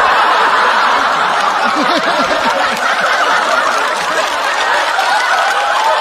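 Studio audience laughing, many voices together, breaking out right after a punchline and holding loud and steady.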